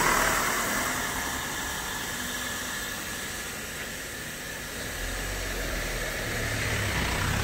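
Steady hissing noise, loudest at the start and easing off, with a low engine hum coming in about five seconds in.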